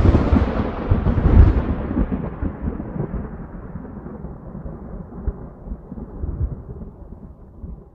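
Thunder sound effect: a loud crack with a second peak about a second and a half in, then a long rolling rumble that slowly fades.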